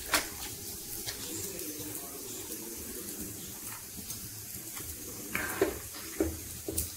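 Water poured from a steel tumbler into a kadai of hot rasam, with a sharp splash as it goes in; the pan then simmers quietly before a steel ladle knocks against the pan a few times near the end.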